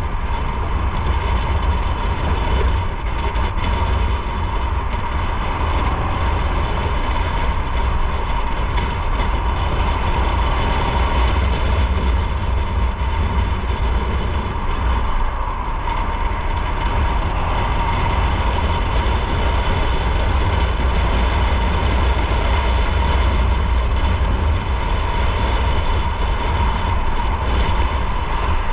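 Motorcycle being ridden at a steady speed: an even engine drone mixed with wind and road rumble, with no change in pace.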